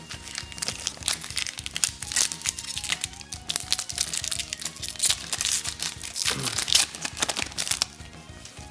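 Foil trading-card pack wrapper crinkling and crackling as it is torn open and handled. The crackling stops about 8 seconds in.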